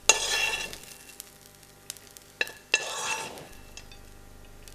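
A spoon scooping crisp pan-fried sprouted lentils and sage out of a hot pan and onto a plate: two short rustling, sizzling scrapes about two and a half seconds apart, with a sharp clink just before the second.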